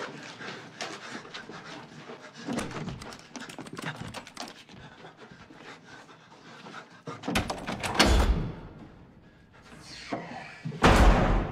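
A man panting and breathing hard, with two loud thuds, one about eight seconds in and one just before the end.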